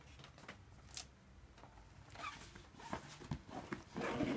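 Rustling and light handling clicks of paper and a fabric backpack being handled, growing louder near the end.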